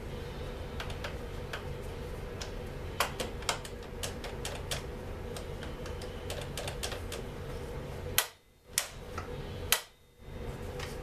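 Irregular small clicks and taps of hand tools and parts being worked on a Stihl MS 250 chainsaw, over a steady low hum. The sharpest clicks come near the end.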